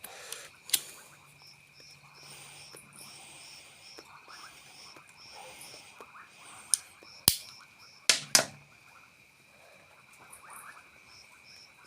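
Metal lighters being handled: a few scattered sharp clicks and knocks, the loudest about seven seconds in and two more just after eight seconds. Under them runs a steady high chirring of insects.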